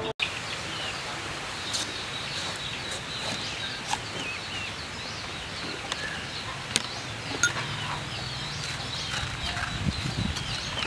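Birds chirping and chickens clucking in the background, over a steady outdoor hiss, with a few sharp clicks and taps from knife work on a papaya.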